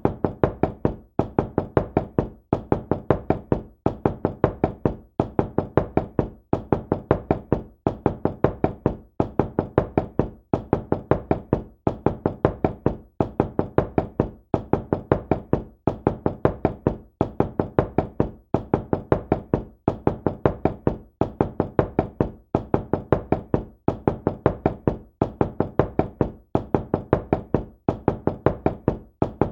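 Knocking on a door: quick runs of several knocks, repeating steadily about once a second with brief pauses between runs.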